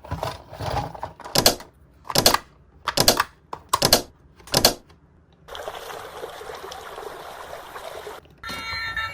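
Plastic toy parts and packaging being handled during an unboxing: a handful of sharp clattering knocks, then a steady rustle lasting about three seconds.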